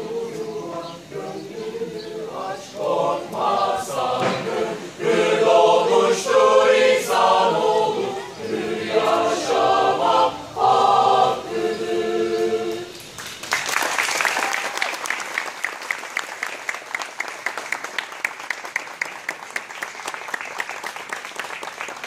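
Mixed choir of men's and women's voices singing unaccompanied in several parts, closing the piece on a held chord a little past halfway through. Audience applause follows to the end.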